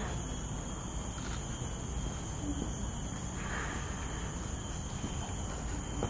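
Steady insect drone of several constant high-pitched tones, over an even low rumble of background noise.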